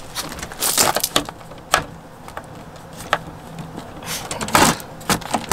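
Scattered clicks and knocks of a metal-legged folding camping table being handled and set on gravel, with the loudest clatter about four and a half seconds in.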